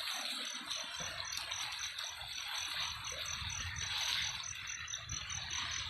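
Steady river water noise with a low rumble, and a high, thin pulsing tone repeating evenly a few times a second.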